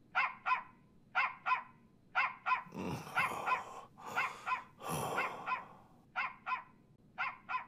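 Mobile phone ringing with a dog-bark ringtone: pairs of short barks repeat about once a second, evenly timed. Two soft rustles are heard about three and five seconds in.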